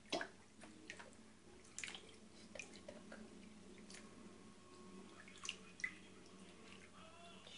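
Light splashes and drips of bathwater in a plastic baby bathtub as an infant's legs are moved through the water: a handful of short, separate splashes, the loudest right at the start.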